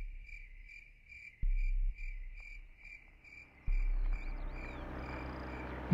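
Crickets chirping in an even rhythm, about two chirps a second. A deep low hum swells in briefly about a second and a half in, and again from near four seconds on.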